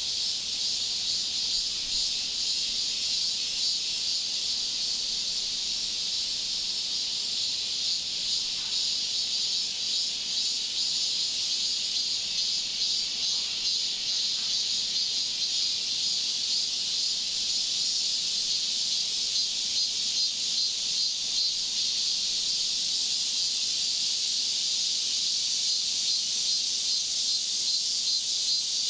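A steady, high-pitched chorus of insects, with a fast pulsing trill.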